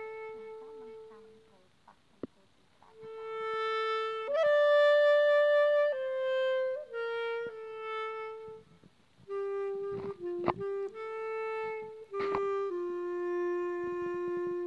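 Background music: a slow melody of long held notes on a single wind-like instrument, with a near-quiet gap about two seconds in and a few short clicks around ten seconds in.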